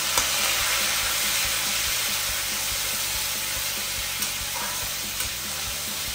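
Chopped tomatoes sizzling in hot oil with whole spices. The sizzle jumps up sharply just after a small click near the start, then slowly eases, with a few light clicks of stirring later on.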